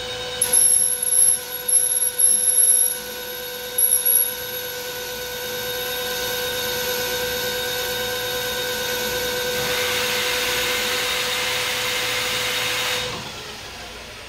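Metal lathe turning round stock with a small round-nose cutting tool: a steady ringing whine of tool chatter, with shrill squeals coming and going over the first four seconds. A hiss of cutting then builds, and the sound drops away about 13 seconds in as the cut stops. The chatter is taken as a sign that the cutting tool needs sharpening.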